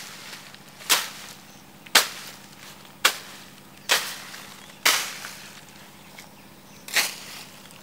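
A long-handled hoe chopping into undergrowth and soil: six sharp strikes, about one a second, with a longer pause before the last one.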